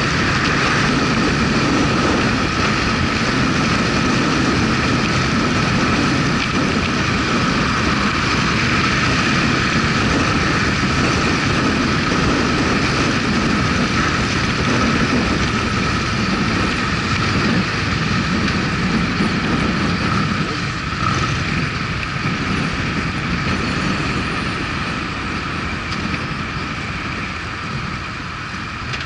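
Motorcycle being ridden on the road: engine running under steady wind and road noise, getting somewhat quieter over the last several seconds.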